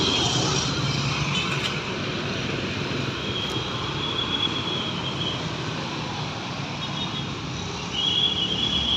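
Street traffic noise: motorcycles and cars running along the road in a steady wash of engine and tyre sound. A high, steady tone comes in briefly at the start, for about two seconds from three seconds in, and again near the end.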